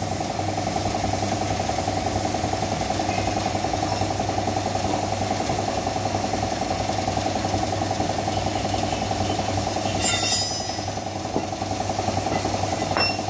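Air compressor motor running steadily at a constant pitch, with a short burst of hiss about ten seconds in.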